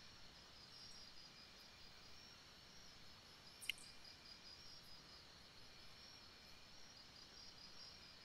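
Near silence: faint room tone with a thin, high, pulsing whine, broken once by a single sharp click a little past the middle.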